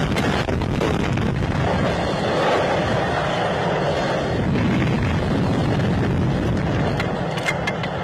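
Steady wind noise rushing and buffeting over the microphone of a Slingshot ride's capsule as it swings through the air.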